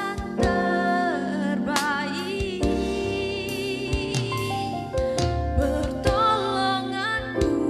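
A woman singing a Christian worship song, her held notes wavering with vibrato, backed by sustained chords on a Roland RD-700 digital stage piano and regular hits on an electronic drum kit.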